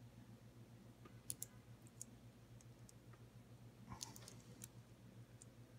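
Faint, scattered clicks and small plastic taps from hands handling the end of a T5 LED shop light fixture and its wire leads, in two small clusters, about a second in and around four seconds in, over a faint steady low hum.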